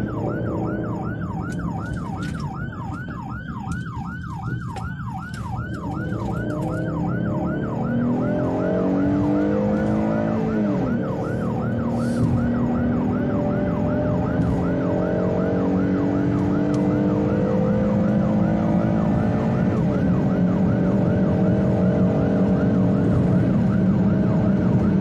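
Fire department command vehicle's electronic siren on a fast yelp, sweeping up and down about two to three times a second, heard from inside the responding vehicle. Its engine and road noise run underneath, climbing in pitch as it speeds up.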